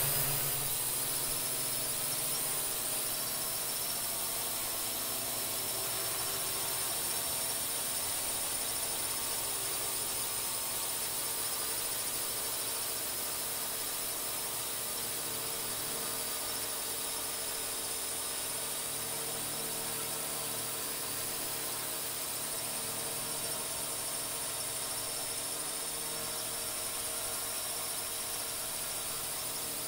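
Multirotor camera drone's electric motors and propellers running in flight: a steady high whine over a hiss.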